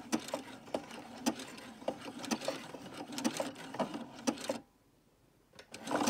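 Domestic electric sewing machine stitching slowly through the end of a woven webbing strap, a needle click at each stitch over a low motor hum, zigzag stitch with a short back stitch. It stops suddenly about four and a half seconds in.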